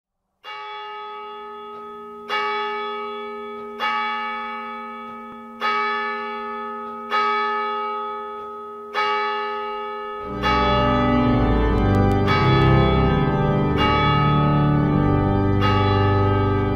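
A single church bell tolling, struck about every one and a half to two seconds, each stroke ringing on and dying away. About ten seconds in, louder organ music enters and carries on under the bell.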